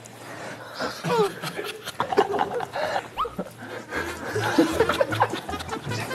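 A group of people laughing and reacting over background music, with a steady low beat coming in about four seconds in.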